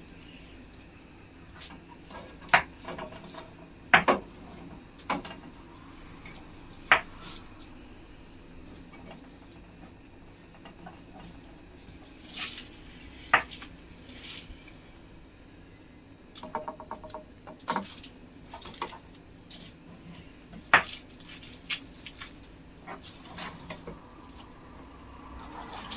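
Scattered kitchen clatter: utensils and dishes knocking and clinking every second or two, some ringing briefly, with quiet in between.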